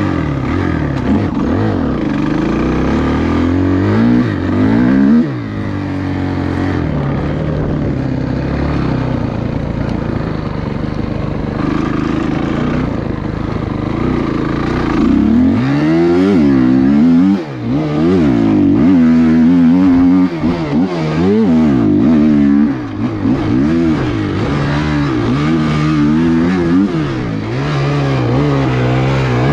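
Dirt bike engine being ridden, revving up and dropping back again and again as the rider works the throttle and gears; the pitch swings become frequent in the second half.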